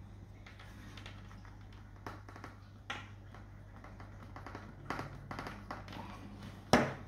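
Single-barbed plastic end plug being pushed by hand into the end of 13 mm LDPE irrigation supply pipe: scattered soft clicks and taps of plastic and hands, with one sharper knock near the end, over a faint steady low hum.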